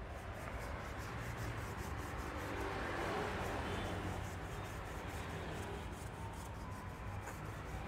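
Low rubbing and scraping noise with faint scattered clicks, swelling slightly around the middle.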